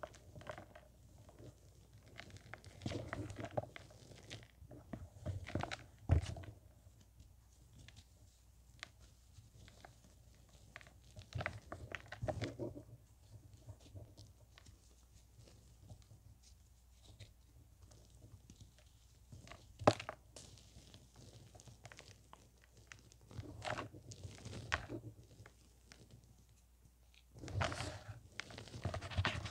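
Hands squeezing and crushing soft clumps of chalky white powder, making soft crunching and crumbling sounds in several spells with quieter pauses between. There is a sharp tap about six seconds in and another about twenty seconds in.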